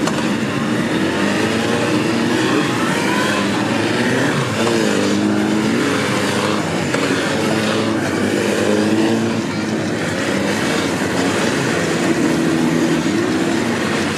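Police motorcycle engines running together, their pitch rising and falling as they are revved and ridden.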